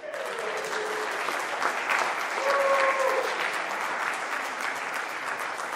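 Audience applauding, starting suddenly and holding steady, with a couple of short calls from the crowd over the clapping.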